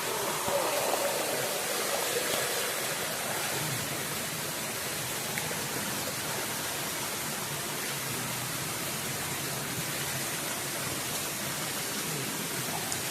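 Steady rushing of flowing stream water, an even noise that does not change.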